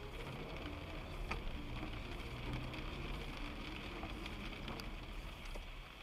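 A car driving on a wet road in rain, heard from inside: a steady low engine and road rumble with the hiss of wet tyres, and a few sharp ticks.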